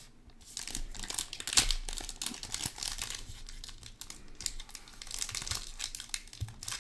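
Foil pouch of a slabbed trading-card pack crinkling in the hands and being torn open at its sealed top, an irregular run of crackles and rips.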